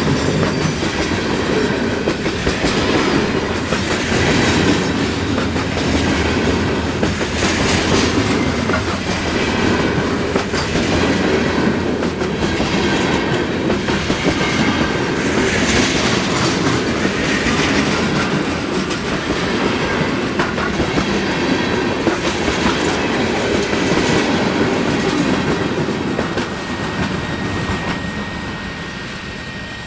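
Mixed freight train cars rolling past, wheels clacking over the rail joints in a steady run of clicks, fading away over the last few seconds as the train moves off.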